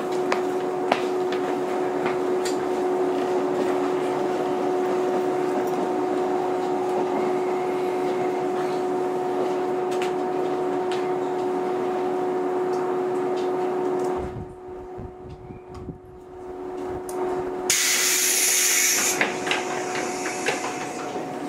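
Inside a JR 115 series electric train: a steady electrical hum with scattered clicks, which drops away suddenly about two-thirds of the way through. A few seconds later a loud burst of compressed-air hiss lasts about a second and a half, and then the hum returns.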